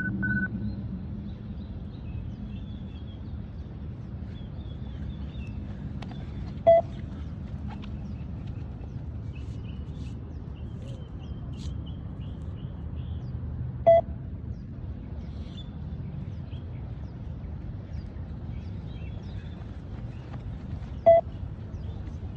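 Beep test (multistage 20 m shuttle run) audio: three short electronic beeps about seven seconds apart, each one marking the end of a shuttle, over steady background noise.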